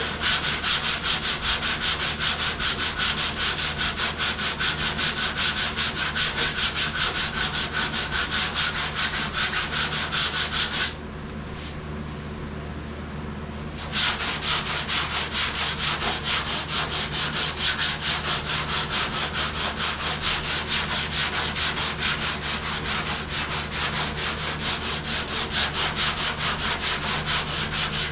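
Hand sanding a car body panel with sandpaper in quick back-and-forth strokes, done to show up low spots and flaws in the bodywork. The strokes stop for a few seconds around the middle, then carry on.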